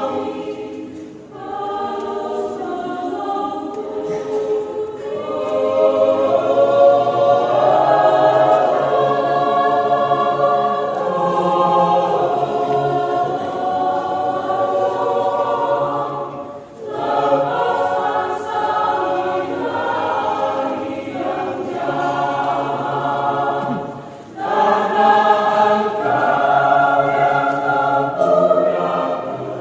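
Mixed choir of men's and women's voices singing together, with short breaks between phrases about a second in, just past halfway and a few seconds before the end.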